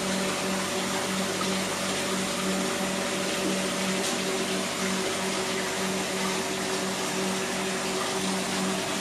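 Aquarium air pump running and air stones bubbling: a steady low hum with an even pulse in it, over a steady hiss.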